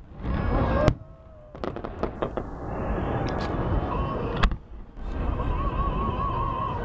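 Festive fireworks salute going off: a run of sharp cracks and pops over a busy background din, with some music in the mix.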